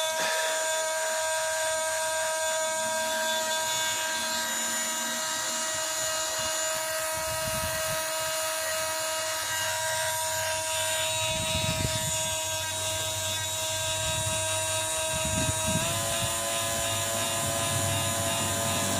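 Parkside cordless multi tool's small motor running at full speed with a steady whine, its pitch stepping up slightly near the end. It is stuck on: the tool will not switch off or change speed from its button.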